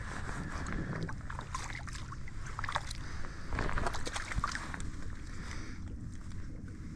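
Shallow salt water splashing and sloshing around a hooked speckled trout as it is drawn alongside and taken by hand, with a flurry of small splashes in the middle. Wind runs across the microphone throughout.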